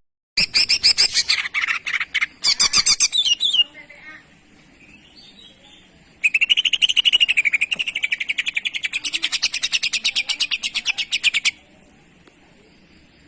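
Cucak ijo (green leafbird) singing the fast, high jantrok chatter. A burst of rapid notes lasts about three seconds, then after a pause a long even trill of quickly repeated notes runs for about five seconds and stops abruptly.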